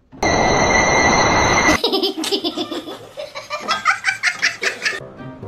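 A loud hissing noise with steady whistle-like tones for about a second and a half, cut off abruptly, followed by a person laughing in rapid bursts for about three seconds.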